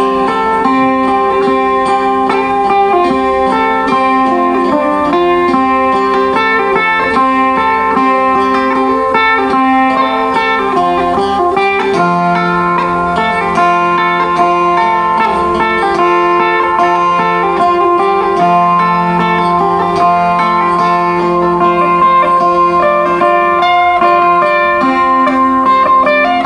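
Sape, the Kayan boat-shaped lute, playing a plucked melody over low sustained drone notes that shift about halfway through.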